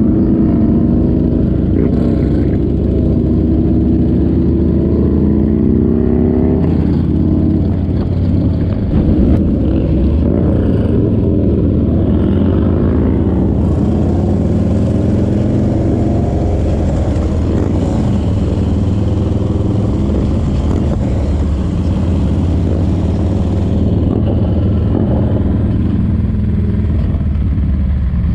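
Motorcycle engine running under way, its pitch rising and falling with the throttle over the first several seconds, then running steadily. A hiss joins it for about ten seconds midway.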